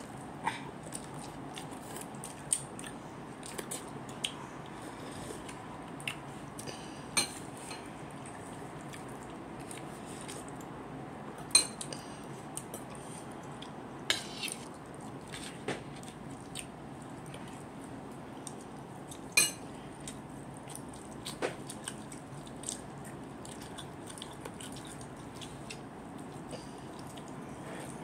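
A person eating with their fingers, close up: chewing and biting, with scattered sharp clicks and clinks against a plate, a few of them louder, over a steady background hiss.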